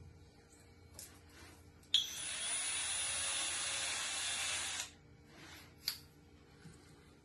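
Cordless drill-driver running for about three seconds, starting about two seconds in, driving a screw that fastens the deadbolt latch into the door edge. A few small clicks and knocks come before and after it.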